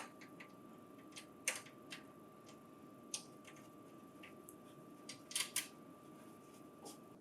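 Faint, scattered clicks and taps of hand work on the printer's parts as the paper transport is screwed in place, loudest a little over a second in and in a quick cluster past the five-second mark. A faint steady high hum runs underneath and stops just before the end.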